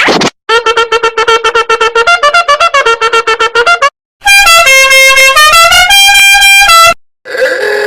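A string of goofy meme sound effects: a fast run of short staccato notes stepping up and down in pitch, then a loud horn-like melody of held notes changing pitch, and near the end a short clip with a gliding pitch.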